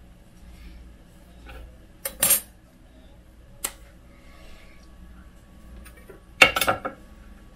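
Steel ruler clattering as it is set down on the workbench and laid against the aluminium bed plate: a quick cluster of metallic knocks about two seconds in, a single click a little later, and the loudest clatter near the end.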